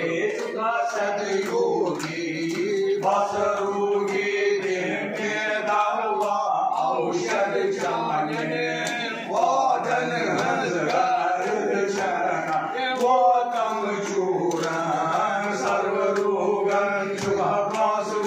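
Men's voices chanting Hindu mantras together in a steady recitation, with long held notes.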